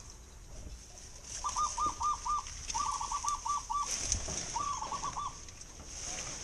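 Dove cooing: three runs of four to six quick, even cooing notes, with a faint rustle of leaves and branches being handled.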